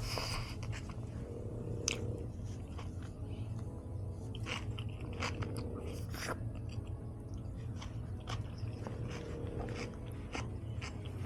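Close-miked chewing of crisp pita chips loaded with salad, with irregular sharp crunches as the chips break between the teeth.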